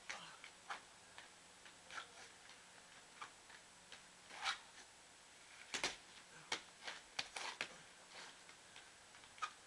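Sneakers and hands tapping and scuffing on a wooden board during breakdance footwork: irregular sharp taps, a few in quick clusters around the middle, over a faint steady background.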